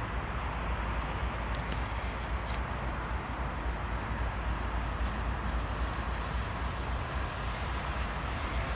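Norfolk Southern freight train's diesel locomotives approaching, a steady low rumble.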